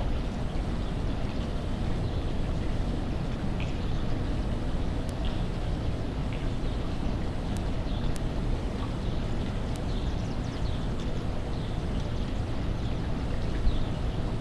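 Steady low rumble of a swimming pool's pump running as the pool is vacuumed, with faint short chirps and a few light clicks above it.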